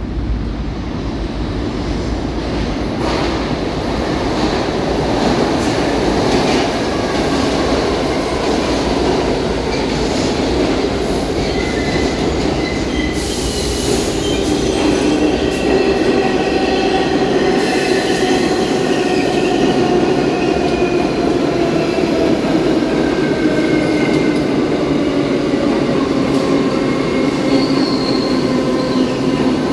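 New York City IRT subway express trains, including a 3 train, running through the station on the center tracks: a loud, steady rumble of wheels on rail with clickety-clack. High wheel-squeal tones come in about a third of the way in and slide slowly in pitch.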